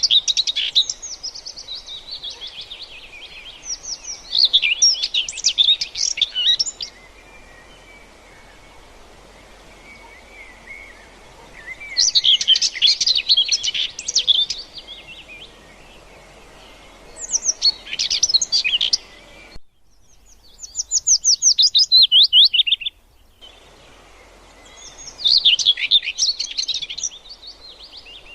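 Birdsong: several phrases of fast, high chirps, each a few seconds long with short pauses between, one of them a rapid trill falling in pitch about twenty seconds in.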